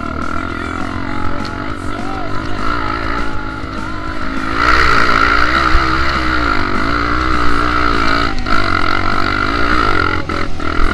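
Trail motorcycle engine running and revving up and down unevenly, getting louder about halfway through as it is opened up.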